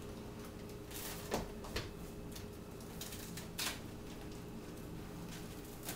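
Quiet room tone: a steady low hum with three faint, short clicks.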